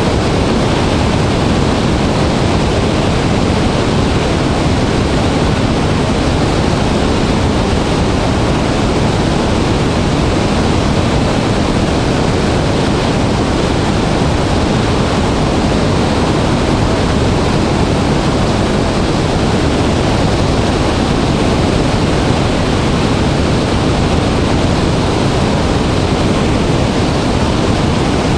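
Large waterfall in full, heavy flow: a loud, steady rush of falling water with a deep rumble and no breaks.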